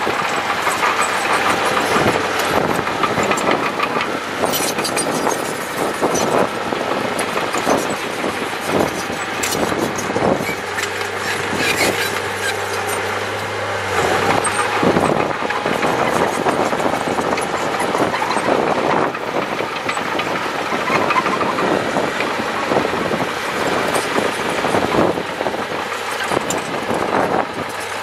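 Crawler bulldozer's diesel engine running as it pushes earth, with its steel tracks clanking irregularly throughout.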